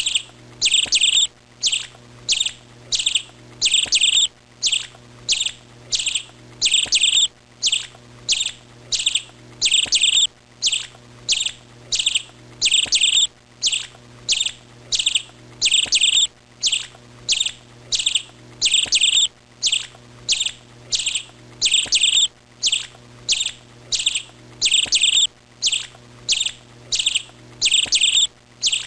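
Small songbird chirping over and over in quick high clusters of two or three chirps, repeating at a very even pace about once a second, with a faint low hum underneath.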